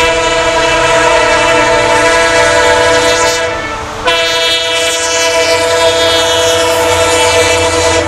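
Horn of an EMD WDP-4B diesel locomotive sounding long, loud blasts, several pitches together. It breaks off briefly about four seconds in and sounds again.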